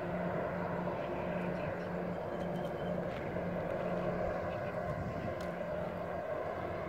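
Distant diesel freight locomotive engine running with a steady drone, its low hum pulsing on and off every second or so.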